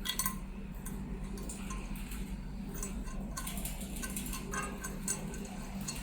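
Light, scattered metallic ticks and clicks as a screw is fitted and turned into a crimping machine's parts, over a steady low hum.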